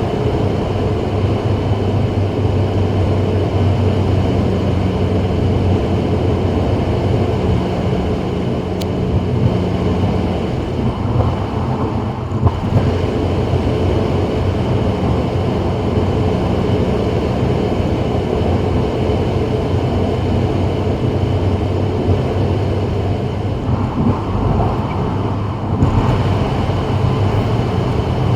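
2024 Subaru WRX cruising on a freeway: steady tyre and road noise with a low, even engine hum.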